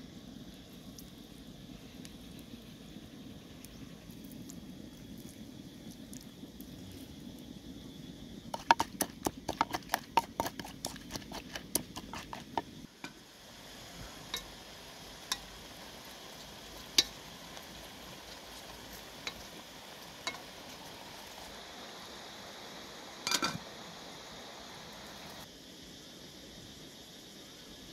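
A run of quick wooden knocks, about three to four a second for some four seconds, fitting a wooden pestle pounding in a wooden mortar. Then scattered single clinks, fitting a ladle striking a metal cooking pot, over a low steady hiss.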